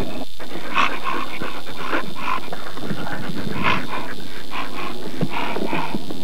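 Alaskan malamute panting close to the microphone, quick breaths coming about three times a second.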